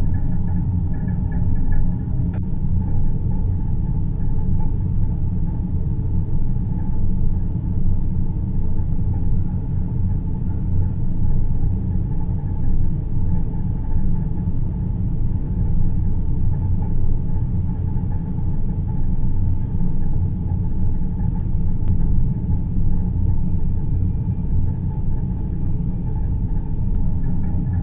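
Deep-space ambience soundscape: a steady low rumble with faint, even hum-like tones above it.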